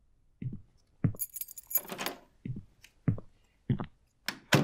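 A bunch of keys jangling for about a second, over slow, regular footsteps about one every 0.6 s, with a louder clack near the end.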